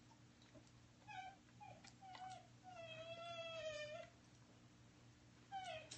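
Faint whining from a five-month-old puppy: a few short whines that drop in pitch, then one long, wavering whine of more than a second about halfway through, and another short falling whine near the end.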